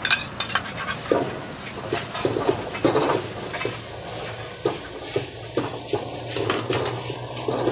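Metal ladle and spatula clanking and scraping against a wok as fried rice is tossed and stirred, irregular metallic strikes over a steady sizzle of frying.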